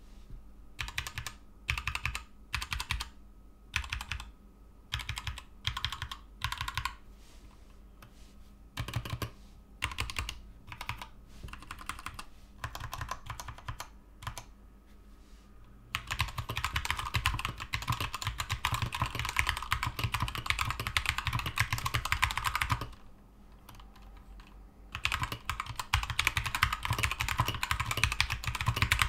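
Keychron K2 mechanical keyboard with Gateron Red linear switches being typed on. Separate key presses and short runs come first, then fast continuous typing starts about halfway through, stops briefly, and picks up again near the end.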